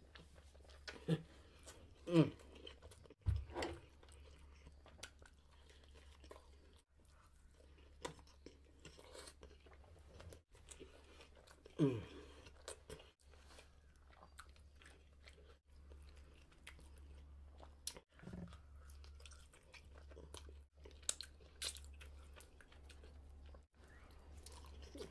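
Close-miked chewing and biting of a cheese-sauce-dipped burger, soft wet and crunchy mouth sounds, with a few short hums that fall in pitch. A steady low hum runs underneath.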